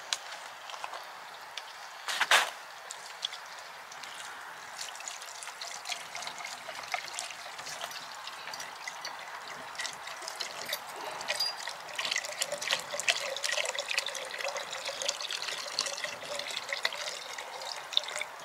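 A sharp knock about two seconds in, then liquid poured from a carton into a pot hanging over a log fire, splashing and trickling, fuller and steadier from about halfway through.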